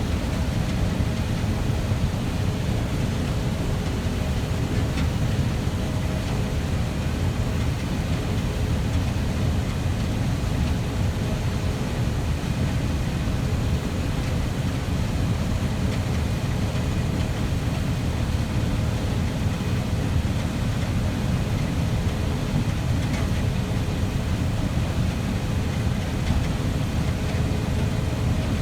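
Heavy farm machinery running steadily: a constant low rumble with a faint steady hum above it.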